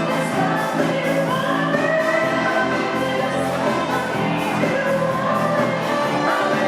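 Military band music played live, with voices singing along over it.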